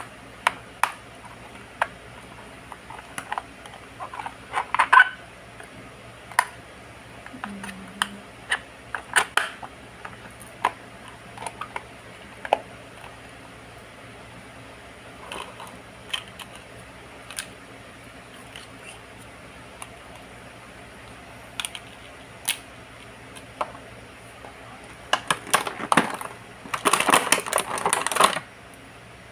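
Hard plastic toy pieces being handled: scattered clicks and taps, then a couple of seconds of dense clattering and rustling near the end.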